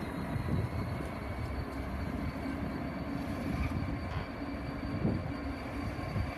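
Class 66 diesel locomotive running light engine at low speed, its two-stroke V12 engine giving a steady rumble. A thin high whine rises slowly in pitch above it.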